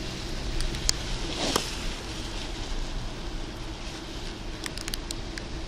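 Car cabin noise while driving on a wet road: a steady engine and tyre hum with road hiss, a brief swish about a second and a half in, and scattered sharp ticks near the end.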